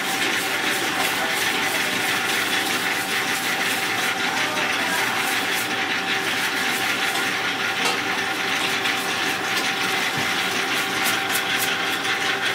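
Wire whisk beating flour into castella cake batter in a stainless steel bowl, in quick repeated strokes against the metal, over a steady mechanical hum and hiss.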